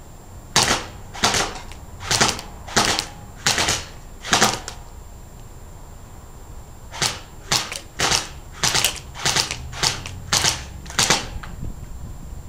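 Airsoft gun firing single shots at close range, each pellet smacking into painted foam armor plates. Six sharp cracks at an even pace, a pause of about two seconds, then about ten more, quicker and less even.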